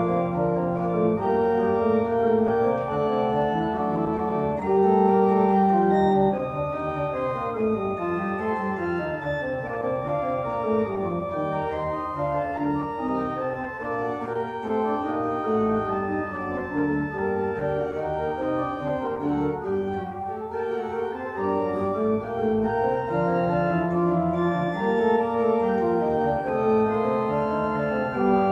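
Church organ playing the postlude. Held chords alternate with running lines that climb and fall, and the sound is fuller at the start, lighter from about six seconds in, and full again near the end.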